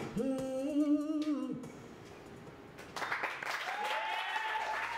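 A woman's voice holds a final sung note with vibrato for about a second and a half. About three seconds in, the audience breaks into applause and whooping cheers.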